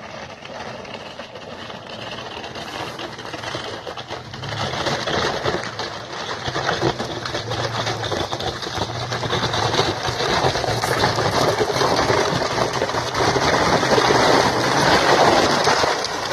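Off-road vehicle driving: a low engine hum under a loud rush of tyre and road noise that grows louder as it goes.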